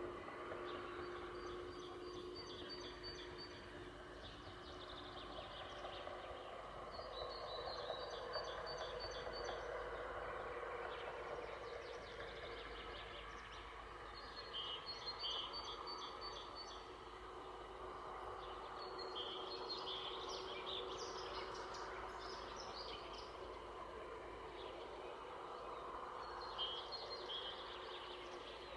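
A songbird singing short, high, rapid twittering phrases, repeated every five or six seconds. Under it runs a steady low background rumble.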